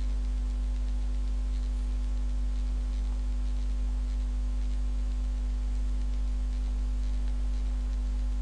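Steady low electrical hum with a light hiss from the recording setup, with a few faint clicks of a computer mouse.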